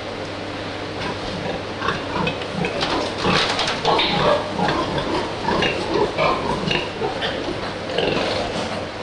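Pigs in a farrowing pen grunting, a rapid run of short grunts that starts about a second in and keeps going, over a steady low hum.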